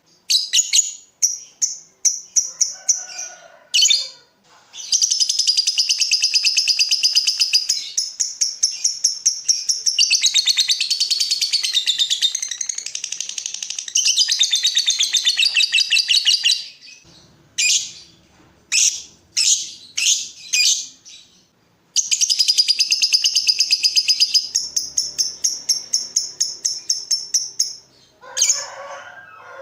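Lovebird singing in long runs of rapid, high-pitched chattering chirps, each run lasting several seconds. The runs are broken by short pauses holding a few separate chirps.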